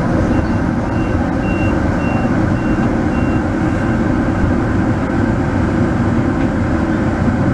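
Driverless electric people-mover train running along its guideway, a steady low rumble heard from inside the car as it pulls away from the station. A string of short high beeps, about two a second, sounds over the first four seconds.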